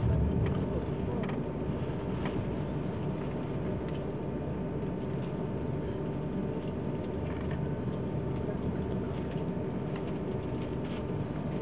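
Running noise heard inside a moving passenger train: a steady low rumble from the wheels on the rails, with a thin steady hum and occasional faint clicks and rattles.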